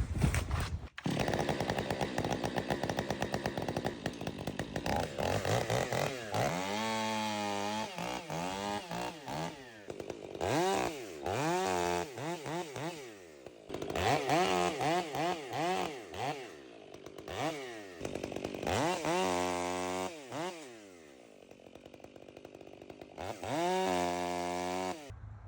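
Ported Stihl 500i chainsaw with a West Coast Saws bark-box muffler, running hard. After several seconds at a steady pitch, the revs rise and fall again and again as it cuts through small birch logs.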